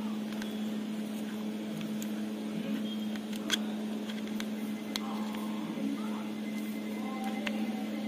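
Faint handling sounds of fingers working sewing thread and a USB cable, with a few light clicks, over a steady low hum.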